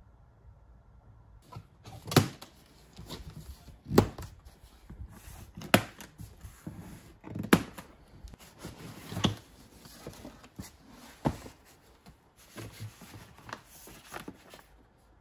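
Plastic packing straps on a cardboard box being cut with shears: six sharp snaps about two seconds apart, then cardboard rustling as the box is opened near the end.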